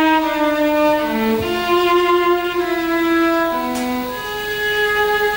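Solo cello playing a slow melodic phrase of long bowed notes, ending on a long held higher note.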